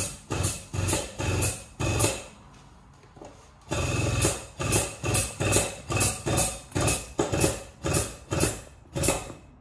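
Rhythmic mechanical knocking, about two to three sharp knocks a second. The knocks pause for over a second about two seconds in, then carry on.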